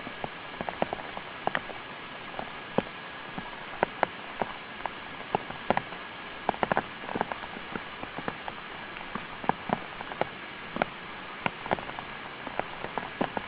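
Rain pattering: many irregular sharp drops and taps over a steady hiss.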